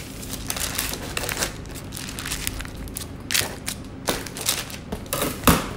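Parchment paper crinkling and rustling as a bench scraper is pressed against a butter log wrapped in it and the paper is worked by hand. A few sharper crackles come in the second half, the loudest near the end.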